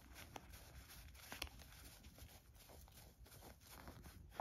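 Faint rustling and a few light flicks of paper play-money bills being leafed through by hand.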